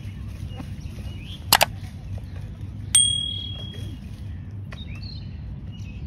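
A bright bell-like metallic ding that rings on for about a second, preceded by a quick loud double click. Faint bird chirps over a low steady rumble.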